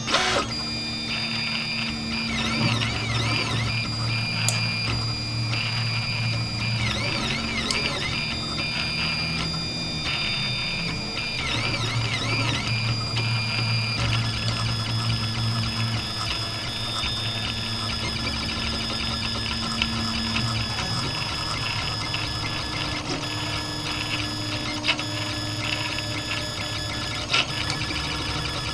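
RepRap 3D printer printing: its stepper motors whine at shifting pitches over a steady low hum, the pitch wobbling rapidly up and down several times in the first half, with a few short ticks later on.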